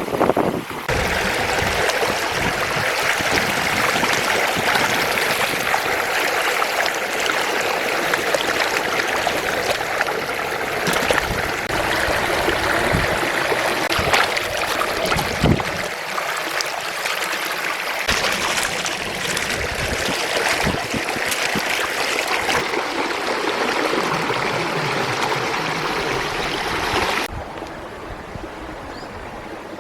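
Water running or trickling steadily, with a few small knocks. It starts abruptly about a second in and cuts off sharply near the end.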